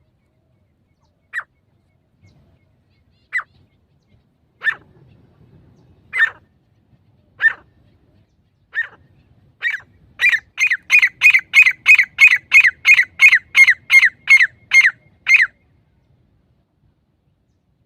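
Grey francolin calling: single sharp notes, each falling in pitch, come one to two seconds apart and then closer together. They run into a fast series of about three notes a second lasting some five seconds, then stop.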